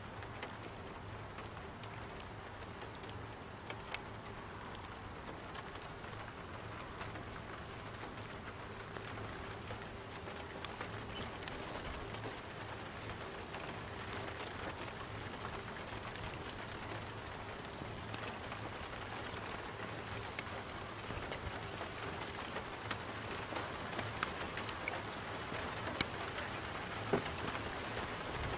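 Rain from a thunderstorm pattering down, with single drops ticking sharply close to the microphone. The rain grows a little heavier toward the end.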